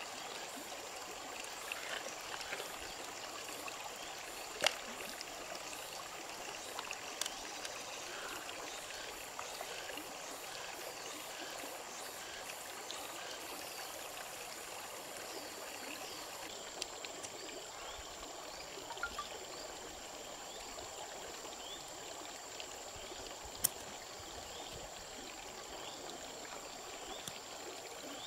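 Shallow stream running steadily over stones, with a few single sharp clicks now and then.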